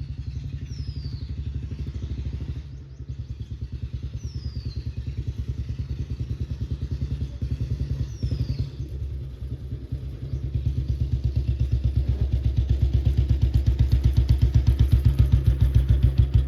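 Motorcycle engine running under way, a steady low pulsing that grows louder from about ten seconds in. A short high falling whistle sounds three times over it, about four seconds apart.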